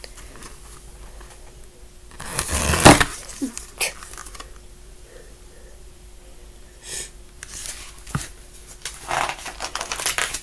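Handling noise from a paperback picture book held and moved close to the microphone: a loud rustle about two seconds in, then a few light knocks and softer rustles as the pages are shifted.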